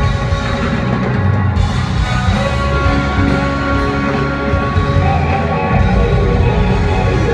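Live band playing loud rock music with a drum kit, heard from the arena audience through a phone's microphone.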